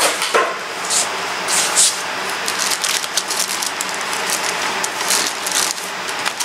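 Box packaging being handled: irregular rustling and scraping with a few light knocks, the loudest rustles about a second in and again near five seconds in.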